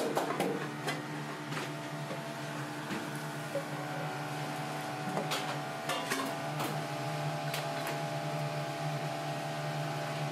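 Steady mechanical hum of kitchen equipment, with scattered clinks and knocks of metal pots and utensils being handled.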